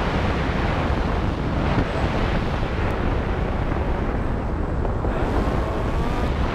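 Wind rushing over the microphone of a camera riding on an RC plane in flight, a steady low buffeting with a faint rising whine about five seconds in.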